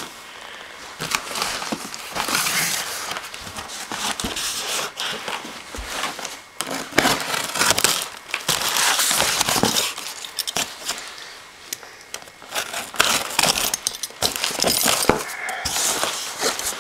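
Cardboard and crumpled packing paper rustling and crinkling in irregular bursts as a heavily wrapped parcel is unpacked by hand.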